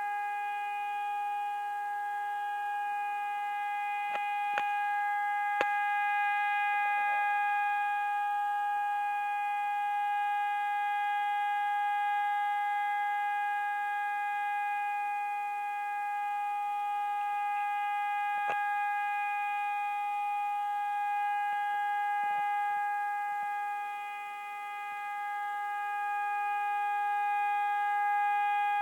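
Hörmann ECN electronic warning siren sounding one steady, unbroken tone with no rise or fall, heard close up. This is the all-clear signal of the siren test.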